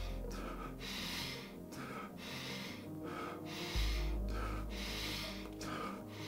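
Fast, rhythmic deep breathing through the mouth in a guided breathwork round, a rush of air roughly every two-thirds of a second. It runs over background music with a deep bass drone that swells about four seconds in.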